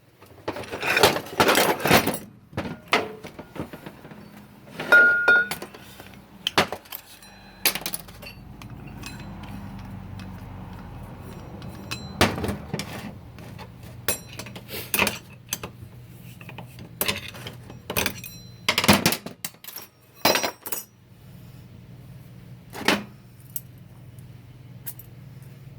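Metal parts of a 4L60-E automatic transmission clinking and knocking as they are pulled apart and set down during a teardown, in a string of irregular sharp clanks. A steady low hum runs underneath after the first several seconds.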